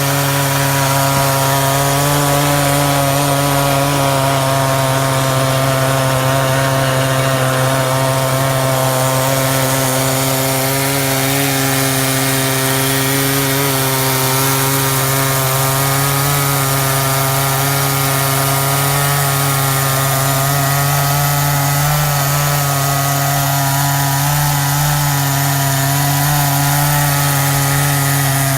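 Chainsaw running at steady full throttle while ripping lengthwise through a hickory log in a rail-guided chainsaw mill. The engine pitch holds nearly constant under load, with only a slight waver.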